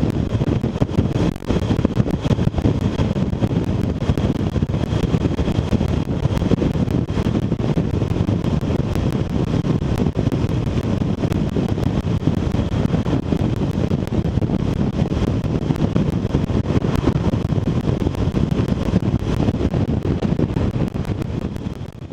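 Wind rushing and buffeting over the microphone of an action camera mounted on a BMW R1200RT motorcycle riding at about 35 mph, with a steady low rumble from the bike and road beneath. The noise fades out near the end.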